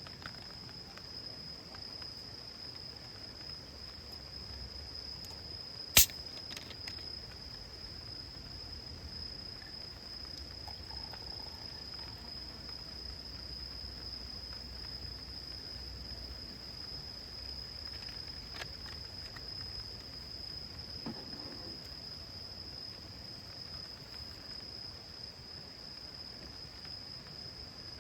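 A single insect, such as a cricket, trilling on one steady high pitch, with one sharp click about six seconds in.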